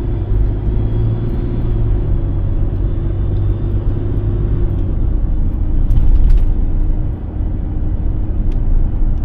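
Car driving, heard from inside the cabin: a steady low rumble of engine and road noise, with a few faint clicks and a slightly louder patch about six seconds in.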